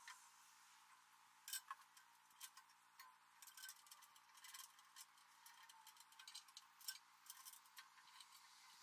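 Faint, scattered metallic clinks and taps from hand work on the mounting frame at the base of a detached Kubota B2782B tractor snowblower.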